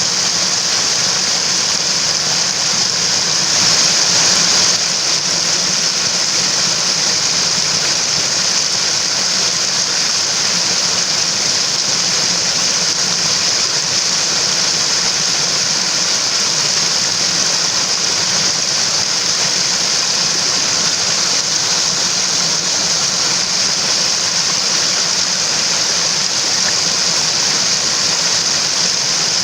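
Mountain stream's water rushing steadily, an even hiss that swells slightly about four seconds in.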